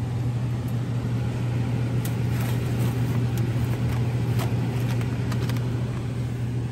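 Steady low hum of supermarket freezer-case refrigeration, with a few light clicks and rustles as a cardboard ice-bar box is taken from the shelf.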